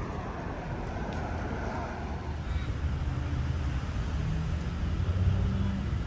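Downtown street traffic: cars driving past with a steady low rumble and tyre noise. A swell comes about a second in, and the rumble grows louder in the second half.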